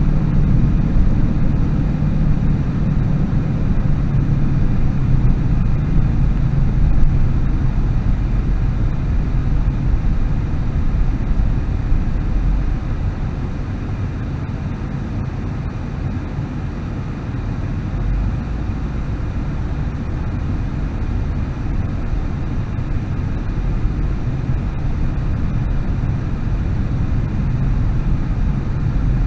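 A car's engine and tyre noise heard from inside the cabin while driving on a city road: a steady low rumble that grows quieter about halfway through and builds again near the end.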